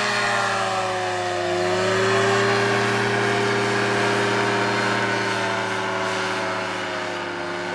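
Paramotor engine and propeller of a powered paraglider running steadily under power during takeoff and climb-out. The pitch sags a little in the first two seconds, then holds.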